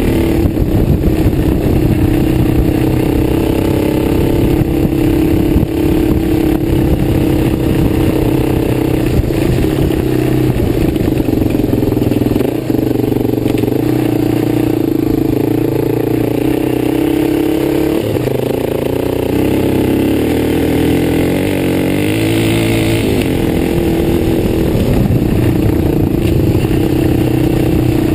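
Dirt bike engine running under way, heard from a camera mounted on the bike. Its pitch swings up and down with the throttle about two-thirds of the way through.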